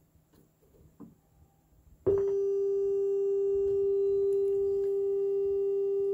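Sansui 9090DB receiver's FM tuner playing a steady test tone that cuts in suddenly about two seconds in as the dial is tuned onto the signal, after faint clicks of near quiet. The tone holds unchanged, a sign of clean reception during an FM function test.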